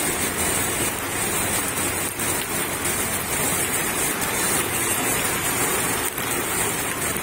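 Heavy rain pouring onto a flooded street and standing water, a steady dense hiss.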